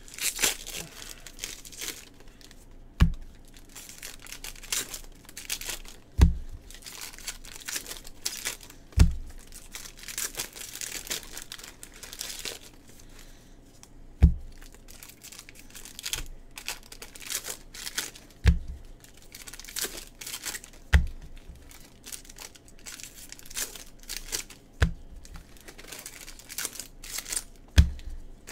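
Foil baseball card packs being torn open and their wrappers crinkled by hand, in repeated rustling bursts. A dull thump sounds every few seconds, about eight times, louder than the tearing.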